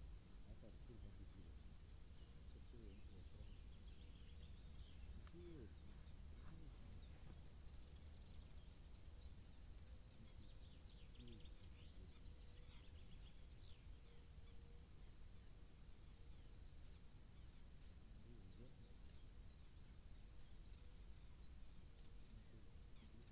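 Faint outdoor ambience: small birds chirping and singing over and over in short, high calls, over a low background hum.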